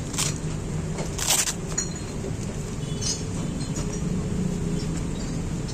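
Plastic wrapping crinkling and vinyl boxing gloves being handled: two short rustles in the first second and a half, then a few small clicks and taps, over a steady low hum.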